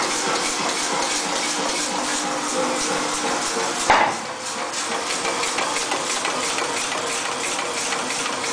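Massey 3cwt pneumatic power forging hammer running, its motor and air pump giving a steady mechanical clatter with a fast even pulse. One loud ringing blow lands about four seconds in.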